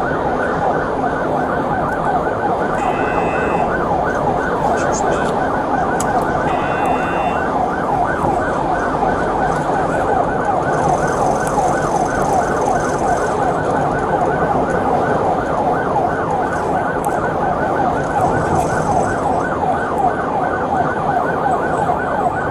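Police siren in fast yelp mode, a rising-and-falling wail repeating several times a second, heard from inside the patrol car's cabin as it drives at speed.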